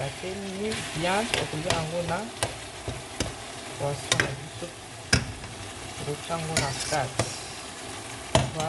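A spoon stirring chopped okra, onion and tomato in a pot, scraping and knocking against the pot at irregular moments, while the vegetables sizzle in the oil.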